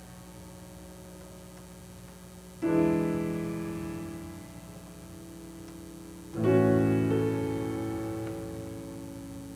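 Piano prelude played slowly: two chords struck about three and a half seconds apart, each left to ring and fade.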